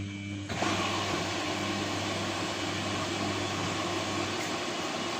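Samsung WF1600WCV washing machine running: a steady low hum with water rushing through the machine, the rush starting about half a second in and holding steady.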